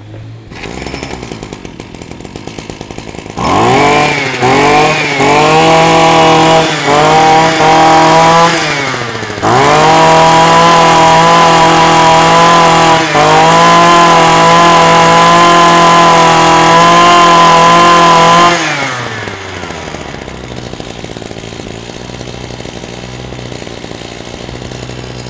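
Zenoah TRZ260EZ 26cc two-stroke brush cutter engine running: idling at first, then revved with several quick throttle blips, held at high revs for about nine seconds, and dropped back to idle near the end.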